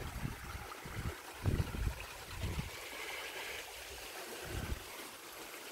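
Small stream trickling over stones, a steady watery hiss, with gusts of wind buffeting the microphone in low rumbles several times.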